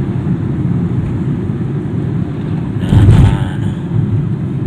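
Vehicle on the move: a steady low rumble of engine and road noise, with a brief louder rush about three seconds in.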